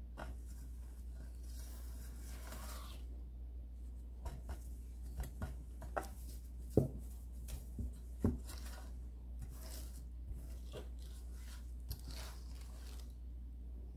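Rustling, scraping and light clicks of things being handled and moved on a tabletop, with two soft knocks about seven and eight seconds in, over a steady low hum.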